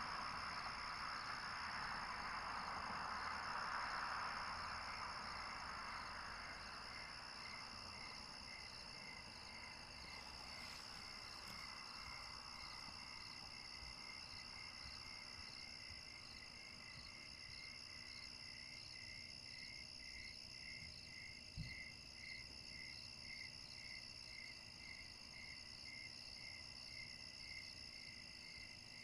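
Night insects, crickets, trilling steadily in several high tones, with a regular chirp pulsing over them from about a third of the way in. A soft rushing hiss fades away over the first several seconds, and there is one small knock about three quarters through.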